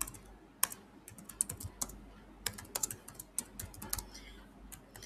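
Keys being tapped on a computer keyboard: faint, irregular clicks in small clusters with short pauses, as a few words are typed.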